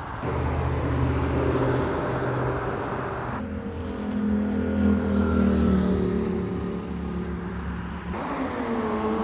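Car engines running as vehicles cruise past on a city street: a deep, steady engine rumble whose pitch drifts slightly up and down. The sound changes abruptly about three and a half seconds in and again near the end.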